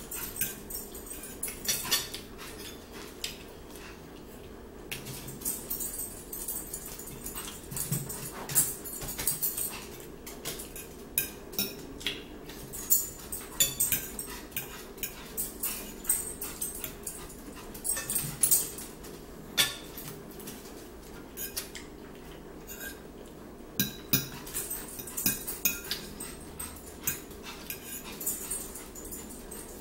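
A metal fork clinking and scraping on a plate in short, irregular clicks, with close-up chewing and mouth sounds of eating scrambled eggs and bread.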